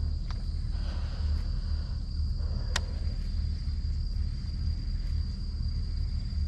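Low, uneven rumble, with a steady high-pitched insect whine over it. One sharp click comes a little under three seconds in.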